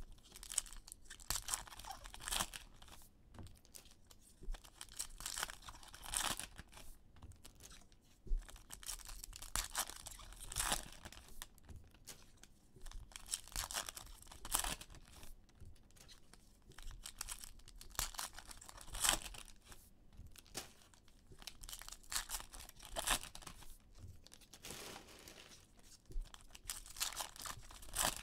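Foil-wrapped trading card packs being torn open and their wrappers crinkled by hand, in short irregular bursts of tearing and crinkling.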